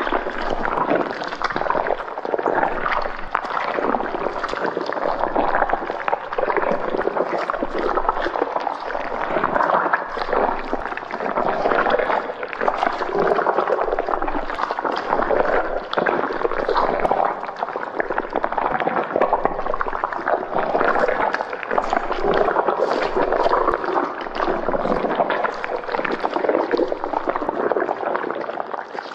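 Continuous wet gurgling, bubbling sound effect, starting abruptly and fading out at the end.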